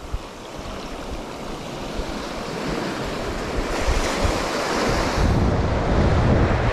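Small ocean waves breaking and washing up a sandy beach at the waterline, the surge building louder through the second half. Wind rumbles on the microphone.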